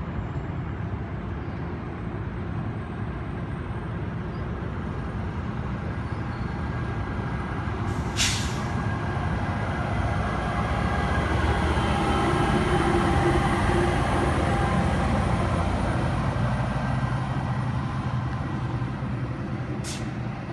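Commuter train of bilevel coaches rolling past with a steady rumble of wheels on rail, growing louder as its diesel locomotive passes. A sharp burst of air hiss about eight seconds in, and a shorter one near the end.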